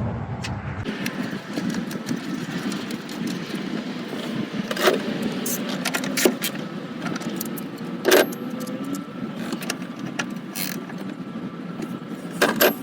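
Hand tools and small metal bolts being handled on an engine: about five scattered sharp metallic clicks and clinks over a steady background noise.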